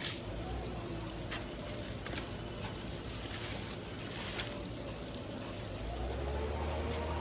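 Pruning shears snipping a few times with sharp clicks, and a rustle of foliage in the middle; a low steady hum comes in near the end.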